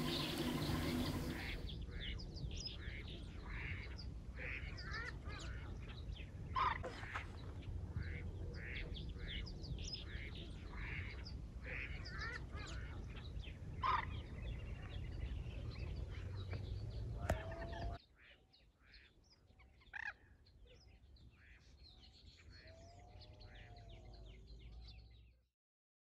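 Wild birds calling across a wetland: many short chirps and calls from several birds over a low steady rumble. After a cut near the end the calls are fainter, with a few lower arching calls, before the sound stops.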